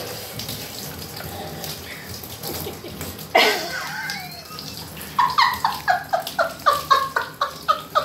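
Handheld shower spray running over a double yellow-headed Amazon parrot, with a sudden louder rush of water about three and a half seconds in. From about five seconds on the parrot gives a rapid string of short calls, each falling in pitch, about four a second.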